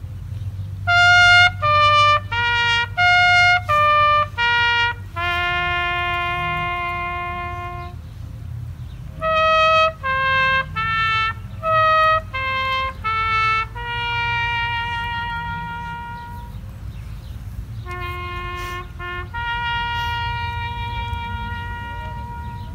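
A lone trumpet plays a bugle-call style tune on bugle notes only. Three times, a run of quick short notes falls to a long held note. A steady low rumble runs underneath.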